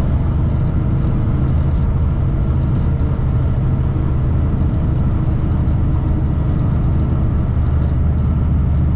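Truck's diesel engine droning steadily at highway cruise, with tyre and road noise, as heard from inside the cab. The sound stays even throughout, with no gear changes or other events.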